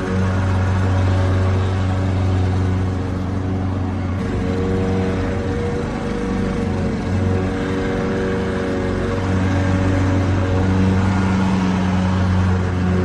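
Lawnmower engine running continuously with a steady hum. Its note wavers from about four seconds in and steadies again near the end.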